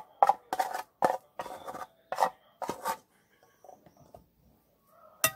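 Metal spoon knocking and scraping against the inside of a metal cooking pot while cooked mung beans are emptied out. It makes a quick run of clanks over the first three seconds, then softer, sparser scrapes, and ends with one sharp click.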